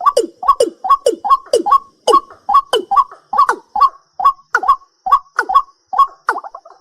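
A night bird calling fast: a run of short knocking notes, each sliding down in pitch, about two and a half a second, breaking into a quicker jumble near the end. A faint steady high-pitched buzz runs behind it.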